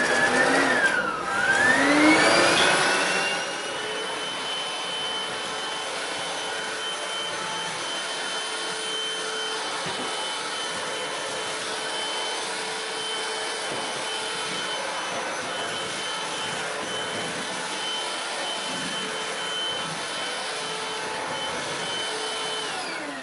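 Hoover CRUISE cordless stick vacuum with its floor power head starting up, the motor whine rising in pitch over the first few seconds, then running steadily with a high whine over a rushing of air. Near the end it switches off and winds down, the pitch falling.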